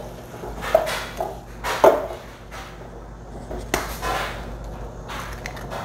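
Metal wire whisk stirring cornbread batter in a mixing bowl, with scattered clicks and knocks against the bowl. Later an egg is tapped on the bowl and cracked open.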